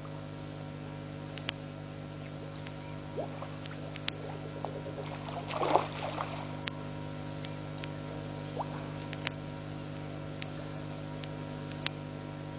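Frogs calling at the pond at night: a short, rapidly pulsed high call repeated about once a second, over a steady low electrical hum from the camera's microphone. Scattered sharp clicks, and a brief rustle about six seconds in.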